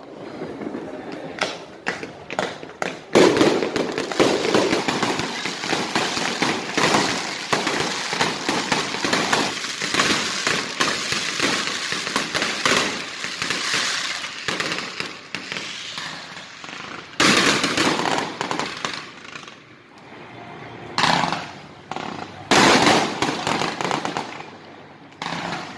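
Fireworks display: a dense, almost unbroken run of rapid crackling bangs from about three seconds in, breaking up after about seventeen seconds into separate loud bursts of crackle.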